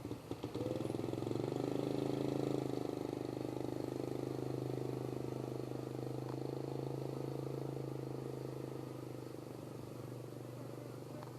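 Motorcycle engine running, rising in pitch and loudness about a second in, then holding steady and slowly fading.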